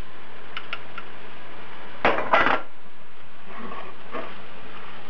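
Wooden spoon stirring and scraping vegetables and paprika in a non-stick frying pan, with a few light clicks and then a louder clatter against the pan about two seconds in.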